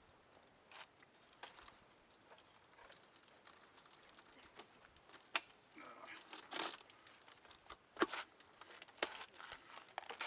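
Steel tire-chain links clinking and jangling as the loose end of a tensioning chain is wrapped around the chain's outer side rail. Scattered sharp clinks throughout, the loudest two about a second apart near the end.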